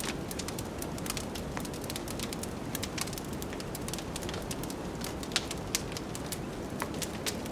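Wood fire crackling, with many irregular sharp pops and snaps over a steady low rush of wind.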